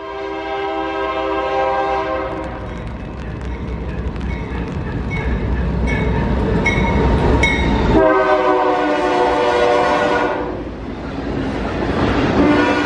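Train horn with several notes sounding together, blowing three long blasts (one to about two and a half seconds in, one around the eighth second, one near the end), over the deep rumble of a moving train. In the pause between the first two blasts a bell rings at about one strike a second.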